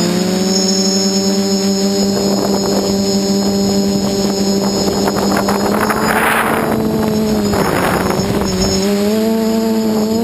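Quadcopter's four brushless motors (SunnySky 2216 800KV) with 8-inch carbon props buzzing steadily in flight, the pitch shifting up near the end as the throttle changes. Two short rushes of hiss come around the middle.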